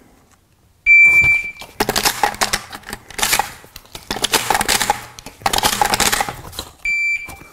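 A shot timer's start beep, then rapid metallic clacking in several bursts as 12-gauge shells are thumbed through the loading port into the magazine tube of a Stoeger M3000 semi-auto shotgun. A second beep, the 6-second par time, sounds near the end.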